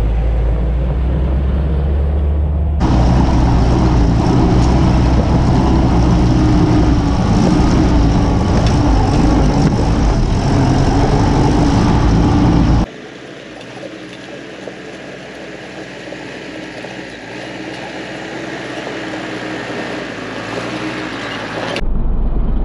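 Willys CJ-2A Jeep engine running at low speed as it crawls over loose rock on ATV tires. The sound changes abruptly between camera angles: loud from about three seconds in, dropping suddenly at about thirteen seconds to a quieter engine that slowly grows louder as it approaches, then jumping back to a heavy low rumble near the end.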